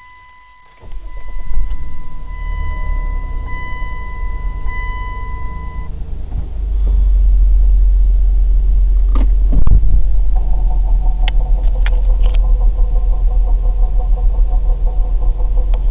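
Chrysler Sebring engine starting and running, with a steady electronic chime tone for the first several seconds and a few sharp knocks near the middle. Then comes a rapid, regular knocking pulse over the engine: the knocking the car makes in reverse, whose cause the owner is trying to find.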